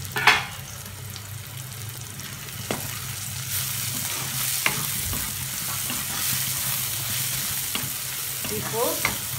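Diced capsicum and onion sizzling in oil in a non-stick pan while a spatula stirs them, scraping and tapping against the pan now and then. The sizzle grows louder about a third of the way in. A sharp knock comes right at the start.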